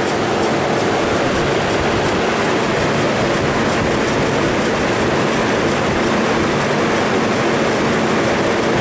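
Three-phase Maneurop refrigeration compressor running steadily and loudly with two phases swapped to turn it backwards, an attempt to free a compressor that had seized from low oil after a refrigerant leak.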